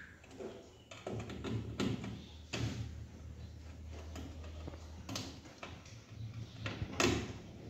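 Scattered clicks and knocks of a screwdriver and wire being worked into a screw terminal on a meter in a steel electrical panel, the loudest knock near the end, over a low steady hum.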